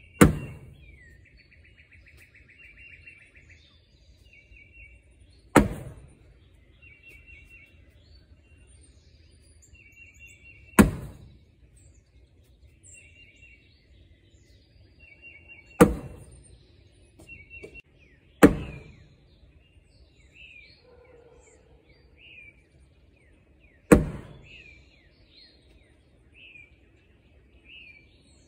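Cornhole bags landing one at a time on a wooden cornhole board, six sharp thuds a few seconds apart, each dying away over about a second. Birds chirp in the background.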